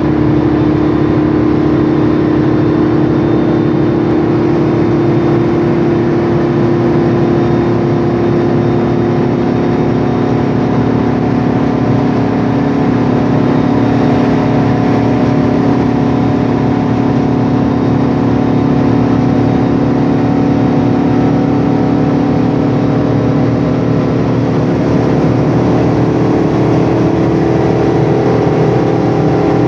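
Heard from inside a 2007 MAN Lion's Classic CNG city bus under way: a steady whine in several tones from its noisy differential and rear-mounted Voith DIWA 864.3 automatic gearbox, over the running engine and road noise.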